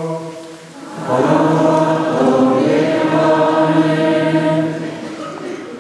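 Many voices, choir and congregation, singing a short chanted liturgical response in unison after a priest's sung line, with long church reverberation. The singing starts about a second in, holds for about three and a half seconds and dies away in the echo.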